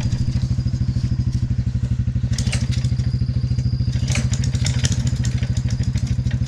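Small off-road vehicle engine idling steadily with a rapid even throb, and a few short clattering knocks about two and a half and four seconds in.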